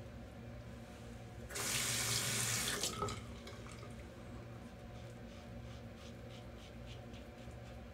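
Tap water running into a sink for about a second and a half, stopping with a short click. Afterwards faint short scraping strokes of a safety razor on stubble.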